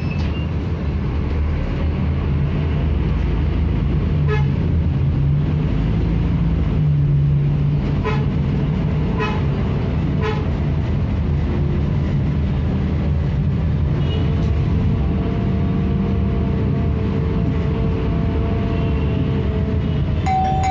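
Scania K310IB bus diesel engine heard from inside the cabin, running steadily as the bus pulls away and drives, its note shifting as it accelerates. A few short horn toots cut in along the way.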